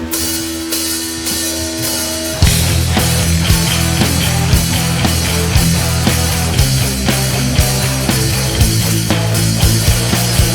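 Rock band playing the intro of a song. Held notes ring for the first couple of seconds; then, about two and a half seconds in, the drums and bass come in with a steady driving beat.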